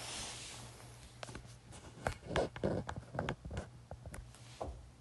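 A smartphone being handled close against bedding: a soft rustle of the duvet at first, then a run of uneven knocks and rubs on the phone's microphone as it is shifted about, over a faint low hum.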